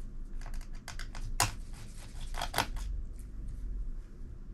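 Scattered light clicks and taps of hands working on an opened laptop's plastic chassis and battery while the battery is being taken out. There is one sharp click about a second and a half in and two more about a second later.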